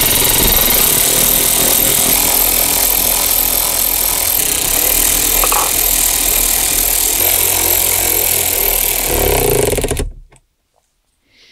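Cordless electric ratchet running continuously, driving in the 10 mm bolts that hold the head unit; it cuts off abruptly about ten seconds in.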